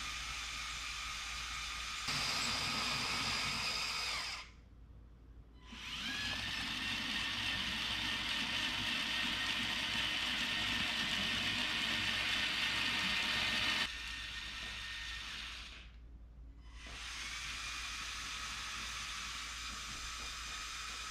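Lego Technic Liebherr 9800 excavator's electric motors and gear trains whining steadily as it drives on its tracks. The whine dies away twice and starts up again each time with a rising pitch.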